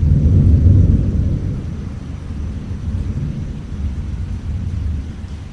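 Deep, low rumble, loudest in the first second or so and slowly easing off.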